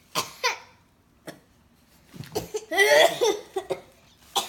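Children laughing and giggling, with short breathy outbursts first and a louder burst of laughter a little past halfway.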